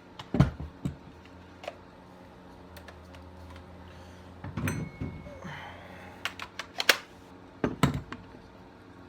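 Irregular clicks and knocks of tools and parts being handled and set down on a workbench, a few with a dull thud, over a faint steady hum.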